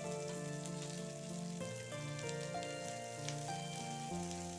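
Background music of held notes that change in steps, over the light sizzle of sliced onions frying in oil in a pan, with a few small clicks.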